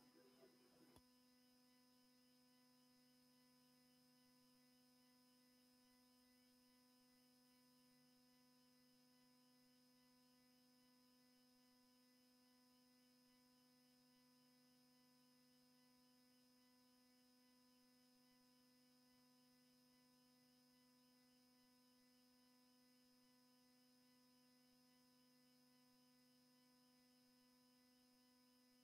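Near silence, with only a very faint steady electrical hum.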